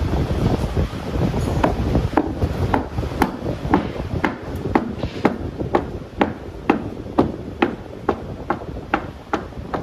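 Hammer blows on a car's sheet-metal body panel, struck steadily about twice a second, over a low rumbling noise that fades after the first couple of seconds.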